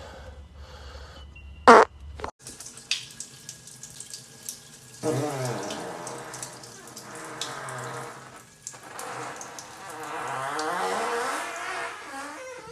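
Men farting: a short loud burst about two seconds in, then two long drawn-out farts of about three seconds each, their pitch wavering up and down.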